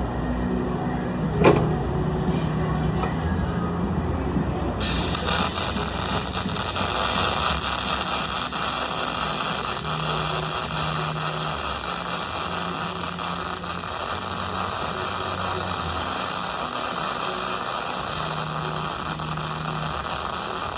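Aluminium welding arc: about five seconds in, a loud, steady hiss starts suddenly and holds evenly, over a low machine hum, with a single click before the arc starts.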